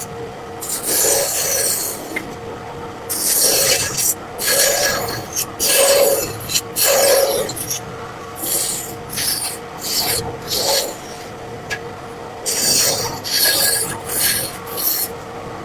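Wood being scraped by hand in repeated abrasive strokes, each about half a second to a second long, coming in uneven runs with short pauses between.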